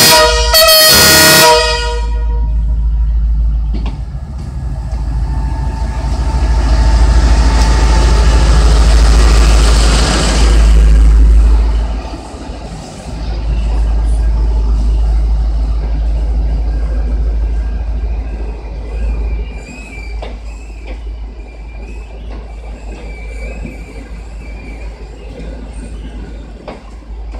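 Diesel-electric locomotive (CNR CKD8H) sounding its horn in two blasts, the horn ending about a second and a half in. Then the locomotive and its passenger carriages rumble past slowly as the train pulls into the station, the rumble loudest as the locomotive goes by and falling away as the carriages follow, with faint high squealing in the second half as it slows.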